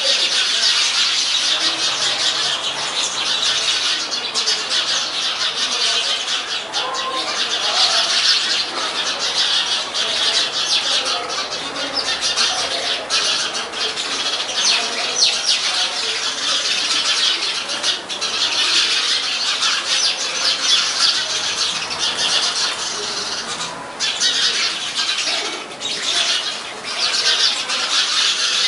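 Loud, dense chorus of a large flock of small birds chattering and squawking together in a tree canopy at dusk roost, countless calls overlapping into one continuous din that eases briefly twice near the end.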